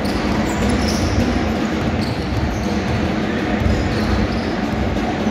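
A basketball being dribbled on a hardwood gym floor during play, with short high sneaker squeaks from players moving on the court.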